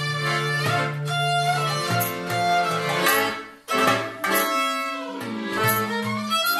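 A violin plays a lively melody with slides between notes, over steady hand-drum strokes struck with the palms. The music pauses briefly about halfway through, then picks up again.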